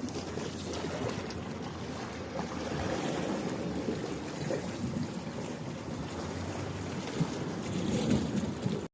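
Sea water washing and lapping with wind on the microphone, a steady, uneven rush that swells a little near the end.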